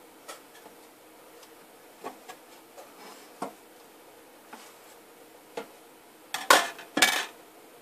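Light clicks and knocks of soap-cutting tools and freshly cut soap bars being handled, with two louder clatters near the end.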